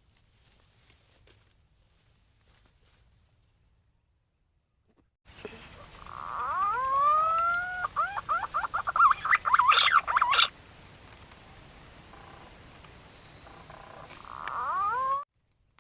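Whistled punai (green pigeon) calls over a steady hiss: a run of curving, rising whistles starts about five seconds in, quickens into fast rising notes and stops abruptly. One more short rising whistle follows near the end.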